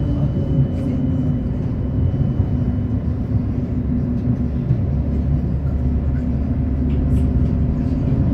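Tram running along its rails, heard from inside the car: a steady low rumble of wheels and motors that grows heavier about halfway through.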